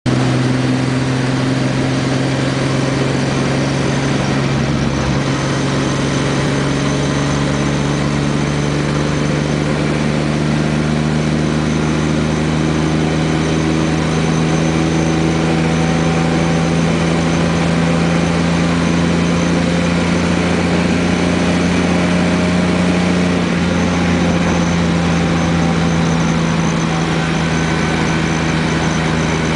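1981 Ford Falcon driving at steady highway speed: a steady low drone over road and tyre noise, rising slightly in pitch over the first twenty seconds or so. The owner is unsure whether the drone comes from a worn wheel bearing or a driveshaft U-joint.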